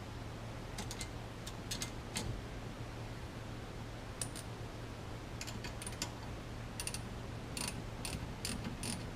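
Ratcheting hand tool clicking in short runs as steering-wheel mounting screws are driven back into the hub, the clicks coming faster and more regularly near the end.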